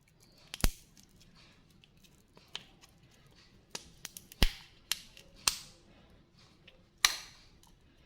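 Plastic candy packaging being handled: a string of sharp clicks and snaps, four of them loud, several followed by a brief crinkle.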